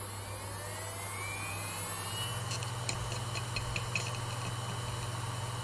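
Desktop hard disk drive spinning up as power is applied: a rising motor whine that levels off after about two seconds into a steady spin over a low hum. A quick run of ticks follows as the drive initializes.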